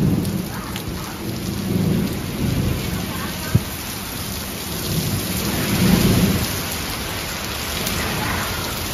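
Heavy rain pouring down in a thunderstorm, a steady hiss, with low rumbles that swell and fade about three times and a single sharp tap about three and a half seconds in.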